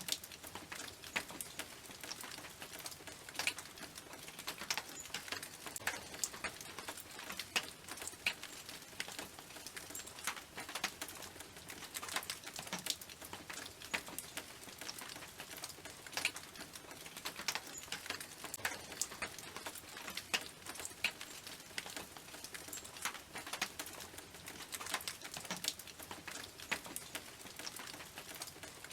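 Rainwater pattering and dripping onto a tin roof: irregular sharp taps, several a second, over a steady soft hiss of rain.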